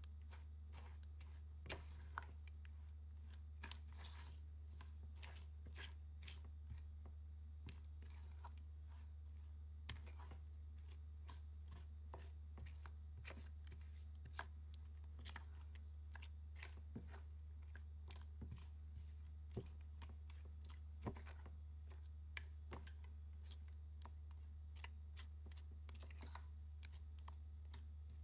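Blue silicone spatula stirring thick pumpkin puree with brown sugar in a stainless steel saucepan: soft, irregular squelches, scrapes and taps against the pan, over a steady low hum.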